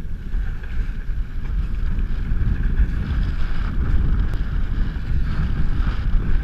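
Wind buffeting the camera microphone and water rushing past as an International Moth hydrofoil dinghy sails, a steady rushing noise.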